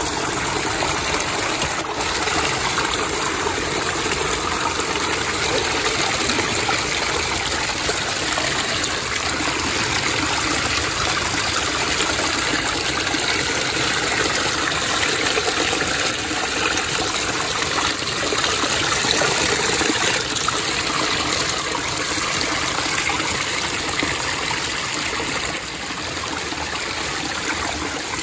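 Shallow rocky stream flowing: a steady rush of running water, a little quieter near the end.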